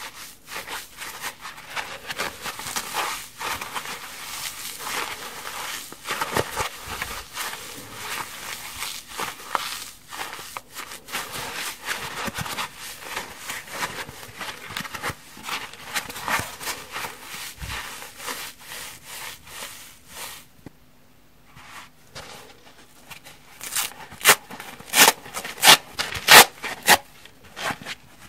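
Kitchen sponges with scouring-pad layers squeezed and rubbed in the hands: a dense, continuous crinkly rubbing and scratching. After a short lull near the end come five or six louder, sharp rasps.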